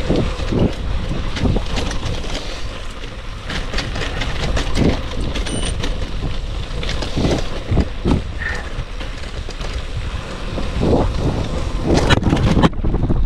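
Wind buffeting the microphone and tyres rumbling over a rough gravel road while riding a gravel bike, with frequent sharp clicks and knocks of the bike rattling over stones.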